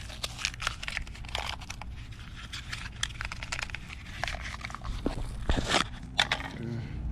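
Irregular clicks, knocks and rustling of hand-tool work and handling as the spark plug is swapped on a pit-bike engine, with a few sharper knocks near the end.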